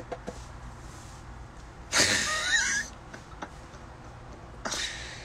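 A man's breathy laugh: a loud burst of air with a wavering voice about two seconds in, lasting under a second, then a shorter, softer puff of breath near the end. A few faint clicks come at the start.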